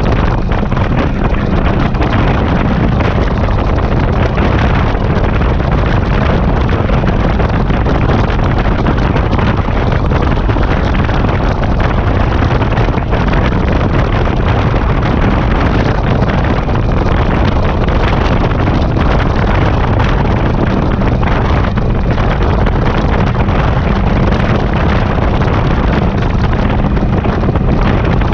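Heavy wind rush over the microphone of a motorcycle-mounted camera at steady cruising speed, with the bike's engine running underneath. The sound is loud and unchanging throughout.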